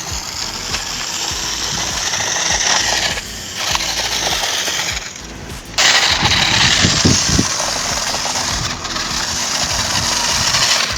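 Toy remote-control 4WD rock crawler driving, its small electric motor and gears whirring loudly. It stops briefly twice, about three seconds in and for about a second near five seconds, with a few knocks as it moves off again.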